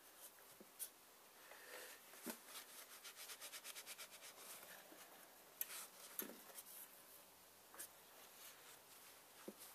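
Faint handling sounds at the oil filter housing: a hand turning the cap and a cloth wiping around it, with light rubbing and a few small clicks, including a run of about six quick clicks a second in the middle.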